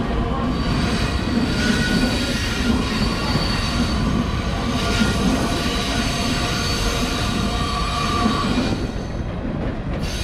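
Metra bilevel commuter train rolling past on the tracks below, its wheels giving high, drawn-out squeals over a steady rumble. The high squeal and rumble thin out near the end as the last car goes by.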